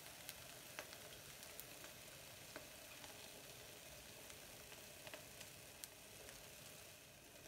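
Egg whites frying in olive oil in a nonstick pan: a faint steady sizzle, with a few light clicks of a fork against the pan as cubes of feta are set on top.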